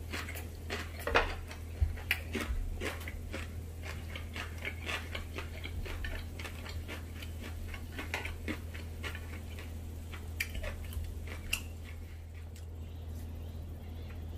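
Irregular soft clicks and smacks of someone eating: chewing and chopsticks tapping, over a steady low hum. The clicks thin out near the end.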